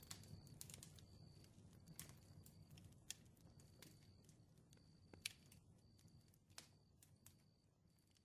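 Campfire crackling: irregular sharp pops and snaps over a low rumble of burning, fading out slowly.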